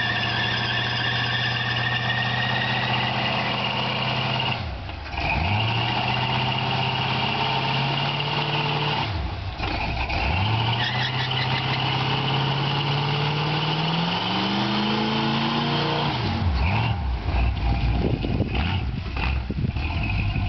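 Pontiac Grand Ville V8 held at high revs during a burnout, the spinning rear tyres squealing. The engine note climbs three times, dropping off sharply twice in between, and after the third climb the revs fall away and the sound turns ragged and uneven near the end.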